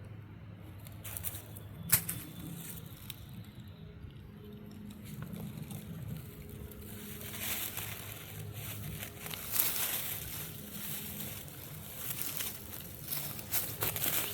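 Irregular rustling and crinkling, with one sharp click about two seconds in.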